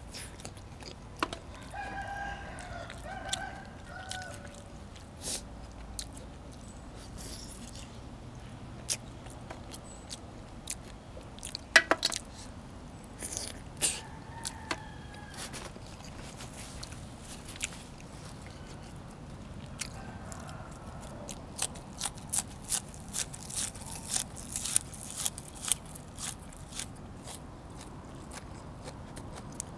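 Chewing and crunching of food, with many sharp clicks and smacks that come thickest near the end. A rooster crows in the background about two seconds in and again around the middle.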